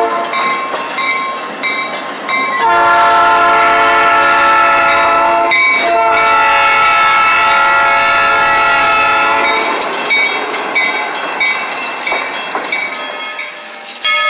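Freight diesel locomotive's air horn sounding two long, loud blasts at a grade crossing, the warning signal for the crossing. A bell rings with steady repeated dings before and after the blasts, over the rumble of the passing train.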